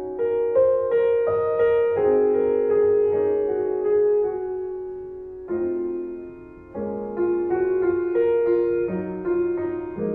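Background piano music: single notes struck one after another over sustained lower notes, with new chords entering about five and a half and seven seconds in.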